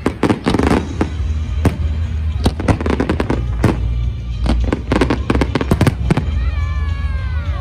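Fireworks display: aerial shells bursting in quick succession, sharp bangs and dense crackling in clusters over a continuous low rumble.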